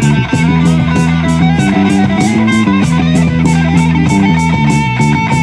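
Guitar-driven rock music with a steady, fast beat played loud through a pair of loudspeaker cabinets, driven by a TDA2050 amplifier board converted from bridged mono to stereo and run on a low ±6 V supply for testing.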